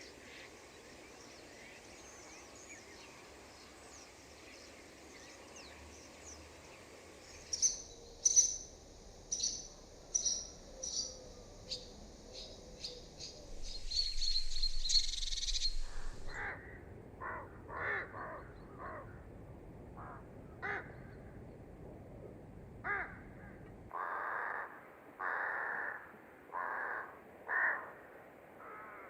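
A sequence of countryside bird recordings: a faint chorus of distant birdsong, then a run of sharp, high calls about two a second, a brief louder rush of noise, and finally lower bird calls repeated about once a second, loudest near the end.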